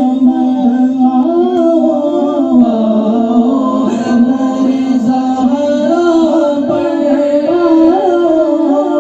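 Urdu naat singing: a long, wavering melodic vocal line held and ornamented over a continuous musical backing, with no clear words.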